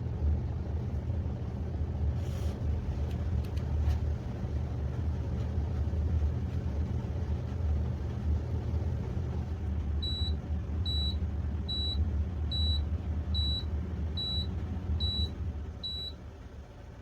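A machine running with a steady low rumble. About ten seconds in, a string of eight short high beeps sounds at an even pace, a little under one a second, and the rumble dies away just before the end.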